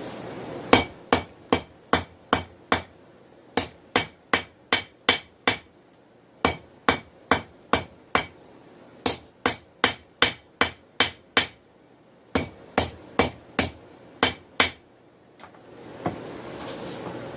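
Hammer blows on a bar of hot 416 stainless steel on an anvil, forging it down to a taper. There are five runs of about five to eight sharp, ringing blows at two to three a second, with short pauses between. A steady rushing noise sits underneath and grows louder near the end.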